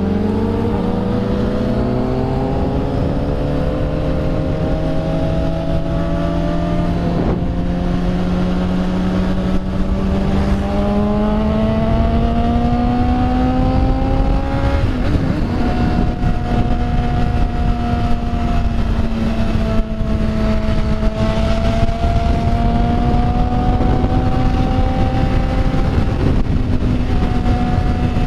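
Motorcycle engine pulling under load, its note rising slowly, with a small break about a quarter of the way in and a drop about halfway, then holding nearly steady, over heavy wind rush.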